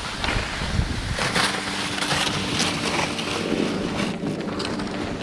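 Plastic pulk sled hissing as it slides over snow, with footsteps crunching in snow.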